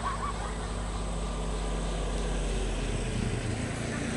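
Small motor scooter's engine running as it approaches, growing louder near the end.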